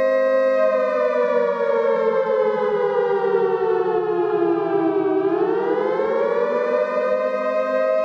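Air-raid siren wailing: a steady tone that slides down in pitch for about four seconds, then climbs back up to where it started and holds.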